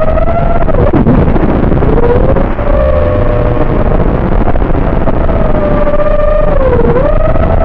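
FPV racing quadcopter's brushless motors and propellers whining, the pitch sweeping up and down with the throttle. The pitch drops sharply and climbs back about a second in, and drops again near the end, as the throttle is chopped and punched.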